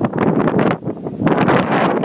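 Wind buffeting the phone's microphone, a loud rushing noise that swells and drops in gusts.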